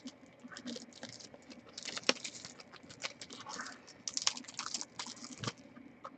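Trading card packaging and cards being handled and opened by hand: irregular crinkles, rustles and light clicks.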